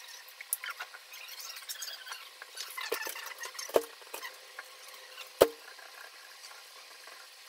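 A silicone spatula stirring and scraping a freshly cracked egg into fried rice in a hot skillet, over faint crackling sizzle. Two sharp knocks of the spatula against the pan stand out, the louder one about five and a half seconds in.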